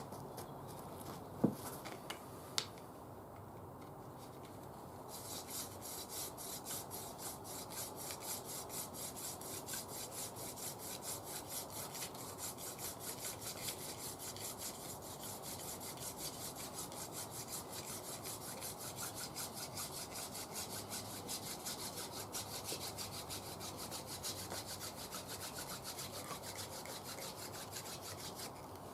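A couple of sharp clicks, then from about five seconds in a steady rhythmic rasping rub on wood, a few strokes a second.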